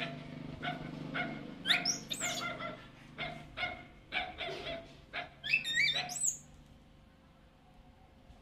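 Baby monkey giving short, high-pitched squealing cries that rise and fall in pitch, in two spells: around two seconds in and again about five and a half to six seconds in.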